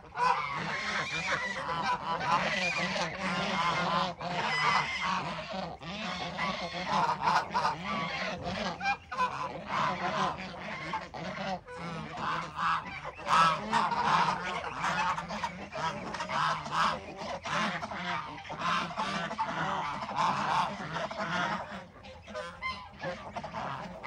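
A large flock of domestic geese honking and calling continuously, many birds at once in an overlapping chorus, slightly thinner near the end.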